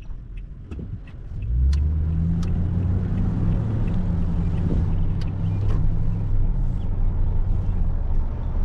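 2020 Toyota Tundra's V8 engine and road noise heard from inside the cab as the truck drives. A low, steady rumble swells about a second and a half in and holds, with a few light clicks over it.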